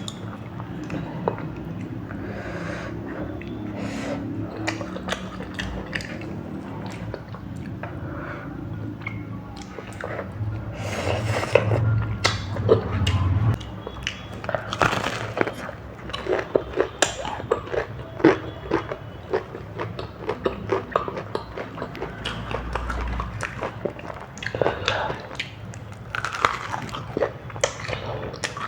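Eating sounds from a mouth close to the microphone: chewing and biting food, with many short, sharp clicks coming irregularly.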